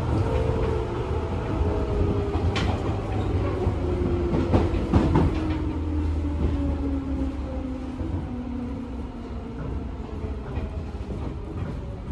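Seibu New 101 series train heard from inside the car, running along the rails and slowing. The motor and gear whine slides down in pitch over a steady rumble, with a few sharp clacks from the wheels on the rails.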